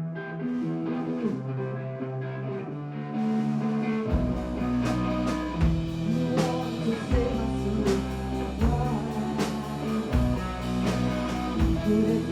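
Live punk rock band starting a song: an electric guitar plays alone, then the full band with drums and bass comes in about four seconds in and plays on with a steady beat.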